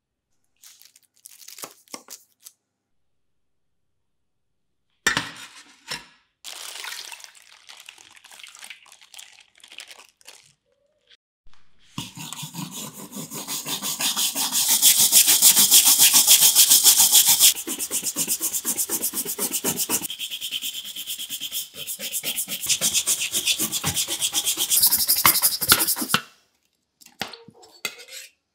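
Stiff-bristled brush scrubbing a rusty carbon-steel knife blade under liquid in a stainless tray, with fast back-and-forth strokes. The scrubbing starts about halfway through after a few light handling knocks and splashes, and stops shortly before the end.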